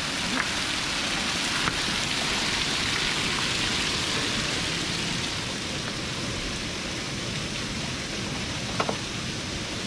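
Steady rain falling, an even hiss of drops, with a few light knocks, the clearest near the end.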